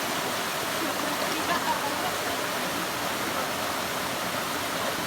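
A low waterfall's water rushing steadily, an even, unbroken hiss.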